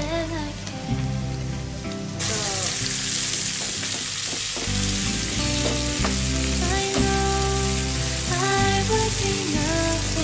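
Vegetables sautéing in hot oil in a frying pan, a steady sizzle that suddenly grows louder about two seconds in, while being stirred with a wooden spatula. Background music with a bass line plays underneath.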